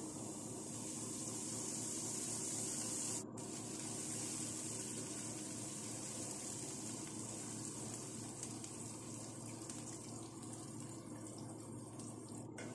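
Sliced onions sizzling in hot oil in a steel karahi: a steady, even hiss that cuts out for an instant twice.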